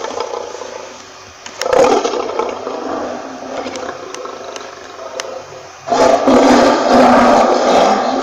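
Lion roaring: rough, noisy roars, one coming on sharply about a second and a half in and a louder one starting about six seconds in.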